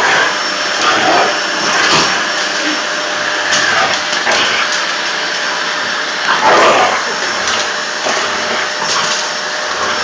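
Vacuum cleaner running steadily, a noisy rush with a thin steady whine, its hose nozzle held at a dog. Short louder outbursts break over it several times as the dog goes at the nozzle, the loudest about six and a half seconds in.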